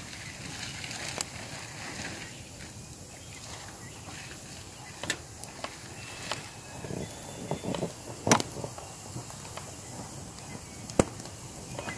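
Quiet outdoor background broken by scattered sharp clicks and knocks, with a few soft rustles in the middle and the loudest knock about eight seconds in.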